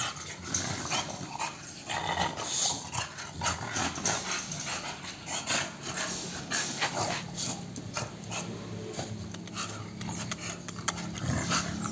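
Two American bully dogs panting, with many short, irregular knocks and scrapes.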